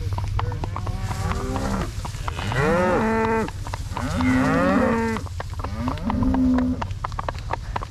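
Cattle mooing: four calls in a row, the first short and the others about a second each, several of them rising and then holding their pitch.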